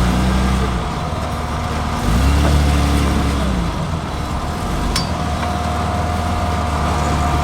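Off-road rock crawler's engine running under load, revving up about two seconds in and easing back down. A thin steady whine comes in about halfway through.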